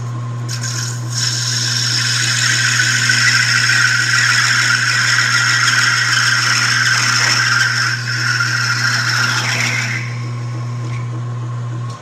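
13-inch South Bend lathe running with a steady hum while a parting tool cuts into spinning bronze bar stock, making a harsh scraping hiss from about a second in until about ten seconds, as the bushing is parted off. The motor hum cuts off at the very end.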